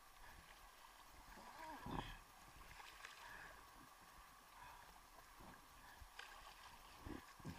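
Faint paddle strokes and water sloshing against the board, with a soft thump from a stroke about two seconds in.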